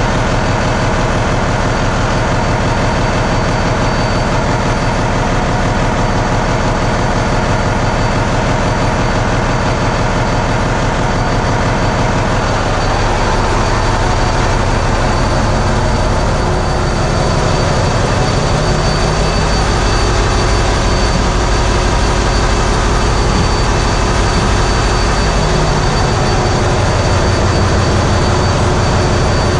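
Ship's engine room with the auxiliary diesel generator sets running: a loud, steady, dense drone with a thin steady high tone over it. The low end grows heavier from about halfway through.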